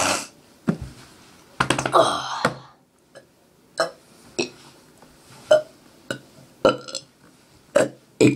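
A person burping on purpose: one longer burp about two seconds in, then a string of short, clipped burps.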